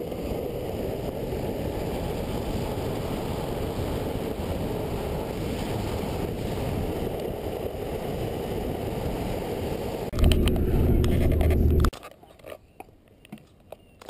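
Longboard wheels rolling fast on asphalt, heard as a steady low rumbling rush from a camera close to the road. About ten seconds in it gets louder for under two seconds, then cuts off suddenly, leaving a few faint knocks as the camera is handled.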